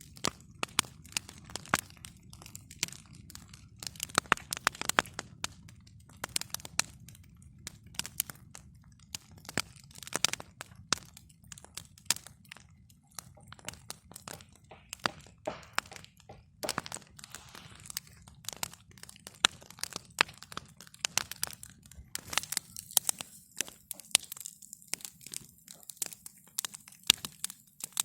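Wood campfire crackling and popping: many irregular sharp cracks over a low, steady rumble.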